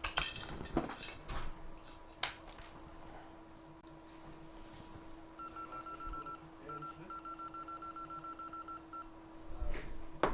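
Rapid run of short, high electronic beeps, about eight a second, in the second half, broken once by a short gap, over a steady low hum; a few clicks sound in the first two seconds.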